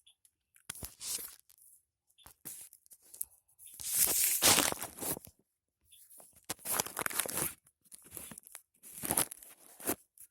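Irregular bursts of rubbing and rustling, loudest about four to five seconds in: hands massaging a child's body and shifting against skin and clothing.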